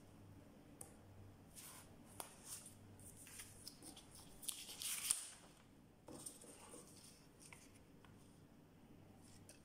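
Faint paper rustling and light handling sounds as paper forms are slid and turned over a cardboard folder, with a short louder rustle about halfway through.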